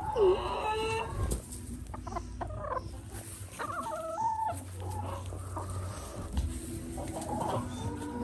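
Several chickens clucking and calling, short pitched calls one after another.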